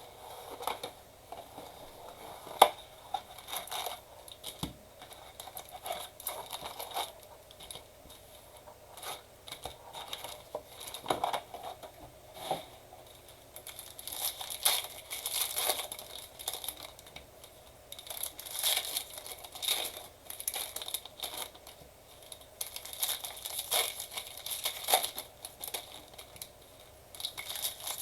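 Plastic wrapping on a trading-card box and its packs being torn open and crinkled by hand, in irregular bursts of rustling and crackling, with a sharp click about two and a half seconds in.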